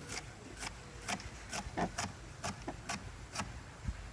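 Kitchen knife chopping a bell pepper on a cutting board: short, sharp cuts, about two a second.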